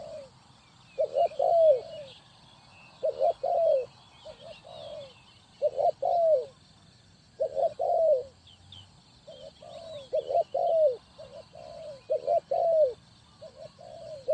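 Spotted dove cooing, its phrases repeating about every two seconds.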